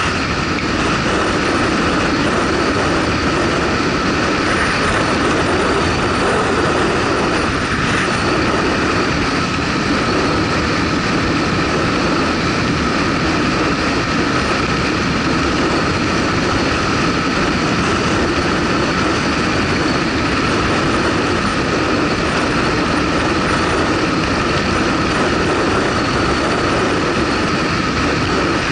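Motorcycle riding at a steady speed: the engine running evenly under a constant rush of wind and road noise.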